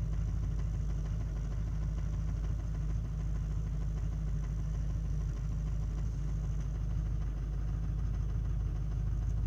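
LLY Duramax V8 turbodiesel idling steadily at about 1000 rpm just after a cold start, heard from inside the cab. The old injectors are ones the owner suspects are leaking.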